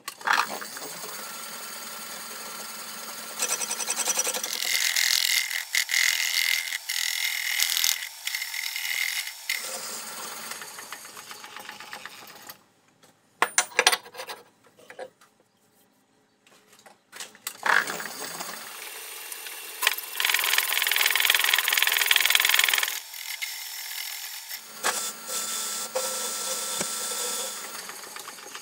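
Metal lathe running and turning a blank steel caliper bracket in its chuck, the cutting tool giving a steady hiss with a ringing tone, played back sped up. The cutting stops for a few seconds in the middle, with a brief clatter as the part is handled, then starts again.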